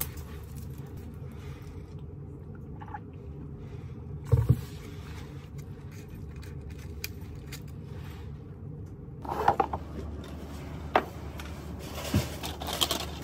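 A steady low hum with two sharp knocks about four seconds in, then a run of clicks, taps and scraping from objects being handled near the end.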